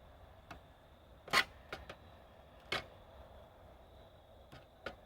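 Wire cutters snipping through the small wires that join the two halves of a card terminal: several sharp clicks, the loudest about a second and a half in.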